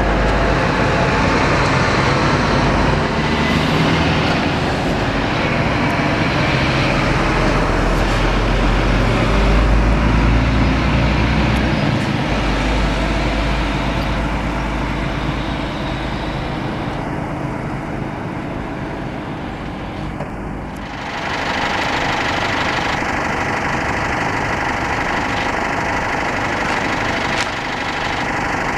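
Scania K360 diesel engine of a double-decker coach running as the bus moves, with a heavy low rumble through the first half. About two-thirds of the way through the sound changes abruptly to a steadier engine drone.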